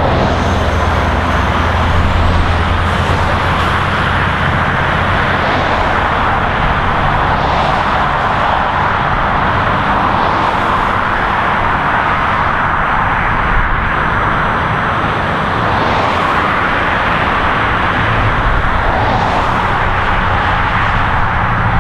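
Continuous highway traffic: a steady wash of tyre and engine noise from cars, trucks and buses. Individual vehicles swell past every few seconds over a low heavy-engine drone.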